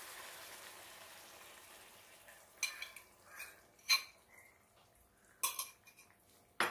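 Faint sizzling of the curry in the pan, fading away over the first couple of seconds as curd is poured in. Then a handful of sharp clinks and scrapes of a spoon, bowl and spatula against the pan.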